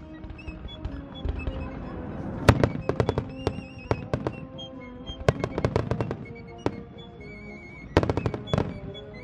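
Aerial fireworks shells bursting in quick runs of sharp bangs, about two and a half, five and a half and eight seconds in, over music playing throughout.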